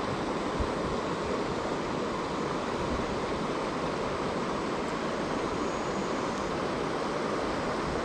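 River current rushing steadily around a wading angler: a continuous, even sound of flowing water.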